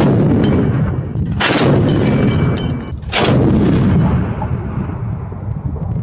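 Heavy truck-mounted cannon firing: three loud reports about a second and a half apart, each followed by a long rolling rumble of echo.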